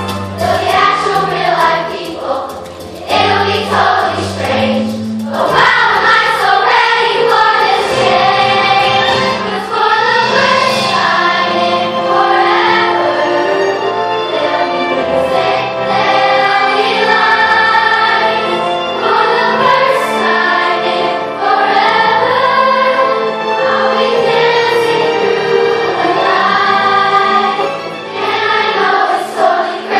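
Large children's choir singing, with steady low accompanying notes underneath.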